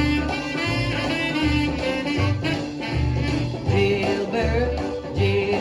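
A 1956 R&B record playing from a 45 rpm single: the band's instrumental passage between sung lines, over a steady, evenly repeating bass beat.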